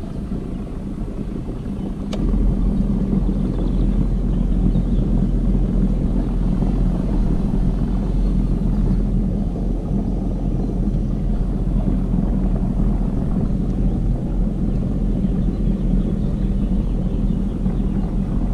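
Paddle boat under way: a steady low drone and churning sets in about two seconds in and holds steady.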